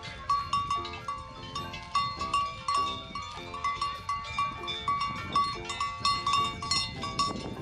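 Many livestock bells clanking irregularly at several pitches, as a herd of cattle wearing bells moves about.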